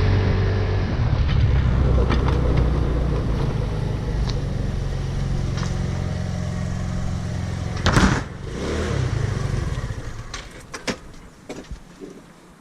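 A vehicle engine running steadily, with a sharp knock about 8 seconds in. The engine then falls quiet about 10 seconds in, leaving a few light clicks and knocks.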